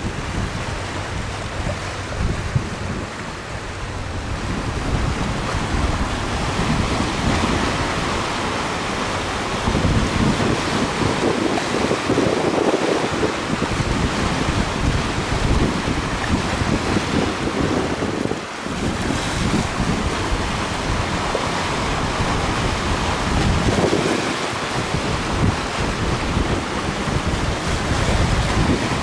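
Wind buffeting the microphone: a steady rushing noise with irregular gusty rumbles in the low end.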